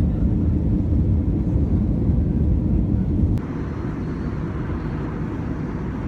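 Airliner cabin noise: a steady low rumble of engines and rushing air. A little over three seconds in it cuts to a slightly quieter, hissier stretch of the same kind of noise.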